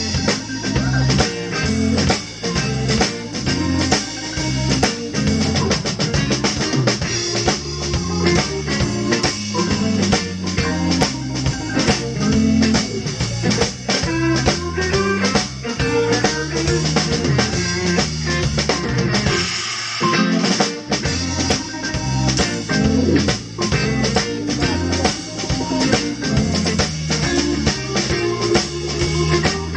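Organ trio playing a blues number: organ, electric guitar and drum kit, with the drums keeping a steady beat.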